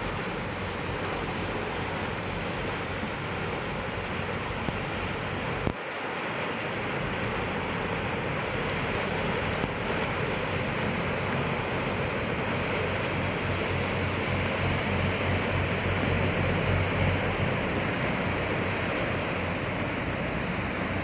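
Steady wind rushing and buffeting on the microphone, a continuous rumbling hiss. A single short click about six seconds in.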